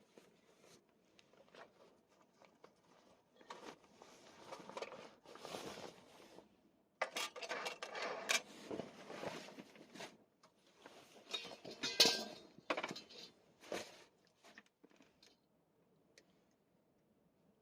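Small objects being handled: irregular clinks, taps and rustling, like camp kitchenware and packaging, with one sharp click about twelve seconds in.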